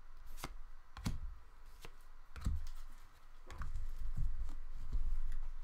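Trading cards being handled: scattered clicks and taps as cards are flipped through and set down.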